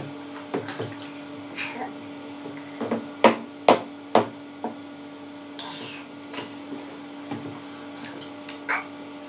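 Wooden spoon knocking against a plastic cup and bath tub in irregular taps, with splashes of shallow bath water, over a steady low hum.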